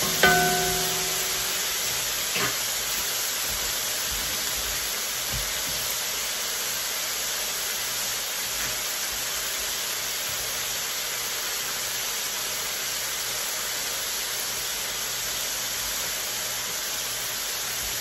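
Chopped vegetables sizzling in a hot cast-iron wok, a steady hiss. Just after the start, a single knock rings on for about a second, the wooden spatula striking the wok.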